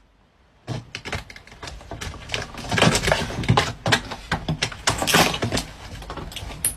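A rapid, irregular run of clattering clicks and knocks, thickest and loudest in the middle.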